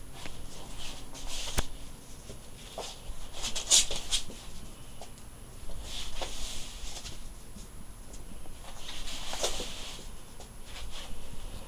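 A pet lop-eared rabbit's paws scuffling and pattering on a blanket and wooden floor as he hops about. The scuffling comes in several short bursts, with a few sharp clicks in between.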